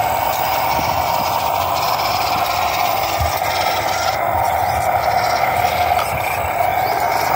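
WPL C44KM scale RC crawler truck's small electric motor and gearbox whining steadily as it crawls over rock, with its tyres scraping on the stone.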